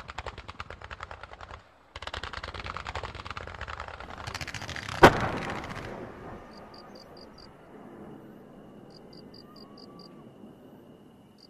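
Firecrackers going off in a rapid, dense chain of cracks like a machine gun, broken by a brief pause near two seconds in. One loud bang comes about five seconds in, and then the crackling dies away.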